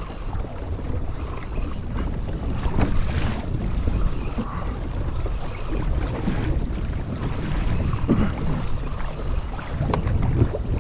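Steady wind rumbling on the microphone, with water slapping against the kayak hull.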